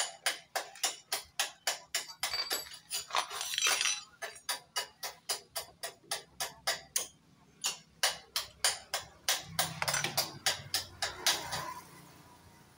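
Background music with a fast, steady percussive beat, about four to five strokes a second, which stops shortly before the end.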